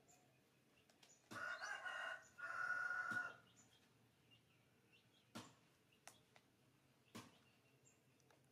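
A rooster crows once, a two-part call with a short break in the middle, about a second and a half in. A few sharp clicks follow.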